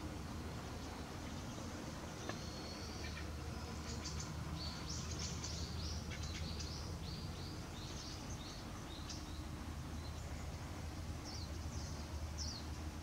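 Small birds chirping in quick runs of short, high-pitched calls, starting about four seconds in, over a low steady outdoor hum.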